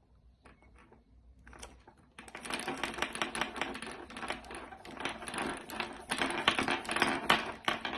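Small plastic connector parts being handled: a few faint clicks, then from about two seconds in a dense run of rapid clicking and rattling.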